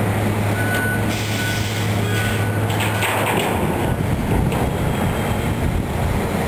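Heavy demolition machinery's diesel engine running steadily, with crackling and crunching noise from the work and a single short beep about half a second in.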